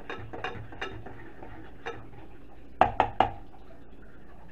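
A metal fork stirring melted butter in a small saucepan, clicking lightly against the pan a few times, then three sharp metal clinks in quick succession about three seconds in.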